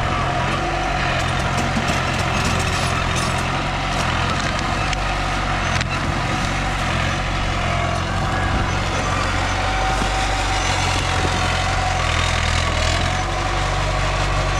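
Komatsu mini bulldozer's diesel engine running steadily under work, with a few scattered metallic knocks.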